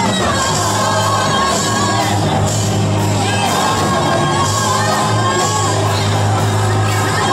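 Live worship music: a keyboard plays long held chords over a steady bass, while a voice sings and the congregation sings and shouts along.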